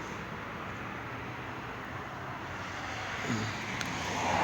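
Steady background noise, a constant hiss and rumble, with a faint click near the end.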